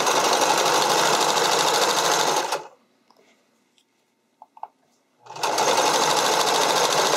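Domestic electric sewing machine stitching elastic down onto a spandex edge at a steady fast run. It stops about two and a half seconds in, with a few faint clicks in the pause, and starts stitching again about two seconds later.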